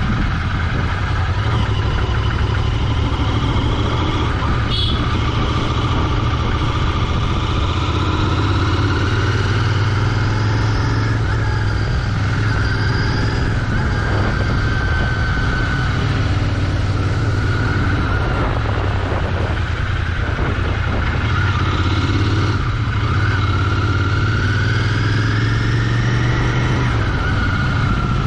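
Royal Enfield Continental GT 650's 648 cc parallel-twin engine running through its stock exhaust while riding, with a steady low rumble and an engine pitch that rises and falls gently with the throttle.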